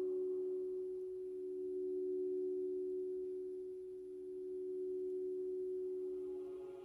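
Meditation drone of two steady, pure sustained tones, slowly swelling and fading in loudness.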